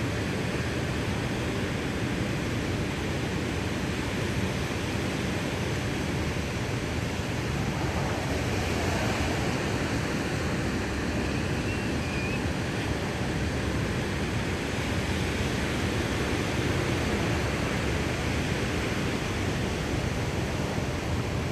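Steady rushing noise of ocean surf and wind, unbroken and even throughout.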